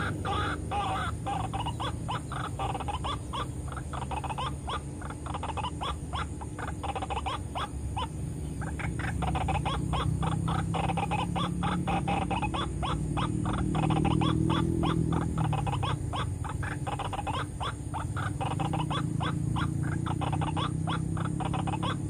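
White-breasted waterhen (ruak-ruak) calling: a long, fast run of short, harsh repeated notes, about four or five a second, over a low steady rumble.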